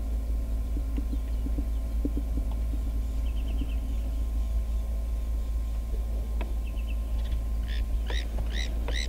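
A steady low rumble with a faint hum under it. A brief bird trill comes about three seconds in. Near the end a bird calls in a quick series of repeated rising-falling notes.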